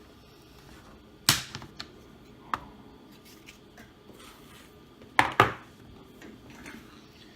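Sharp plastic clicks and knocks as the Dell Inspiron 3576 laptop's battery is released and taken out. There is one loud click a little over a second in, a lighter one at about two and a half seconds, and a quick loud double click just after five seconds.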